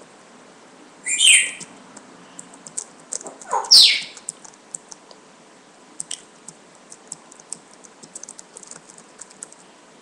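Two short, loud, high chirps about a second apart, the second a quick rising sweep, followed by a run of light, irregular clicks of typing on a computer keyboard.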